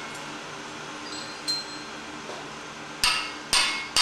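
Hammer blows on red-hot steel on the anvil: a light metallic clink about a second and a half in, then a few sharp blows in quick succession near the end, each with a short ring.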